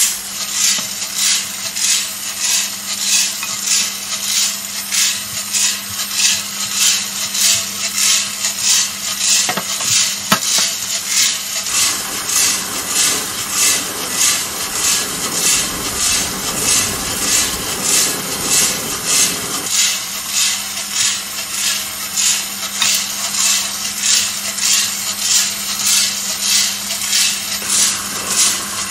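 Coffee beans tumbling in the rotating stainless-steel drum of a home-built roaster mid-roast, a regular swish about three times every two seconds over a steady low hum.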